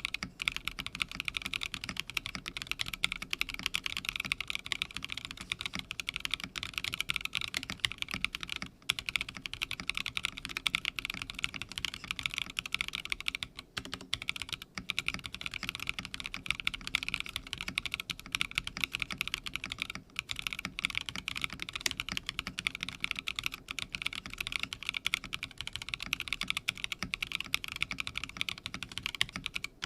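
Fast, continuous typing on a custom mechanical keyboard, a Theca Rubrehose TKL with an aluminium plate, linear switches and NicePBT Soyamilk PBT keycaps. The typing breaks off briefly about 9, 14 and 20 seconds in.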